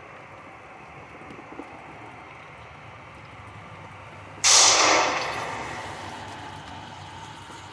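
A single pistol shot from a compensated handgun, about four and a half seconds in. It is sharp and loud, and its echo off the indoor range walls fades over roughly two seconds.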